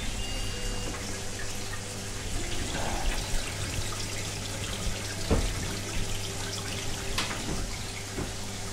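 Aquarium water trickling and dripping over a steady low hum, with a few small clicks.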